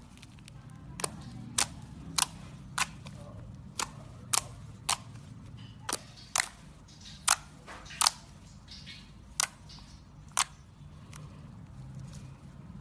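A series of about a dozen sharp clicks, spaced irregularly half a second to a second apart, over a faint low hum.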